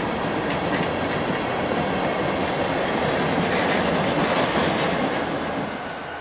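Freight train's covered hopper cars rolling past close by, steel wheels clattering over the rail joints. The noise falls away near the end as the last car goes by.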